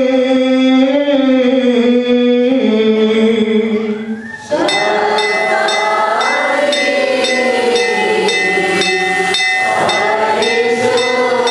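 Liturgical chanting: a voice holds a long chanted note that steps down in pitch, fades about four seconds in, and then a group of voices takes up the chant together. Small metal bells jingle in a steady rhythm under the group singing.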